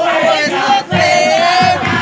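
Crowd of football supporters singing a chant together, a long sung note bending in pitch. About a second in, a low rumble joins under the singing.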